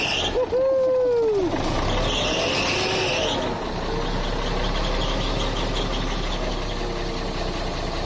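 Ex-military 6x6 truck's diesel engine being started: a whine rises and falls over about a second early on, then a higher squeal, and from about halfway through the engine settles into a steady low idle.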